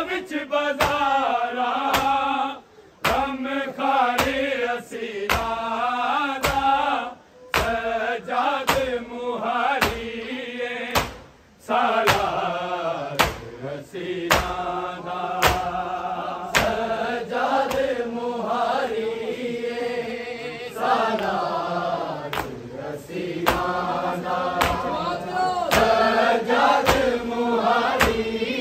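A group of men chanting a noha, a Shia lament, in phrases with short breaks between lines. A steady beat of sharp strikes about every three-quarters of a second keeps time with the chant: the hand-on-chest strikes of matam.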